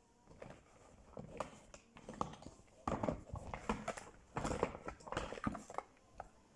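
Makeup cases and eyeshadow palettes clicking and knocking together as a hand rummages through a zippered makeup bag, a string of irregular light knocks.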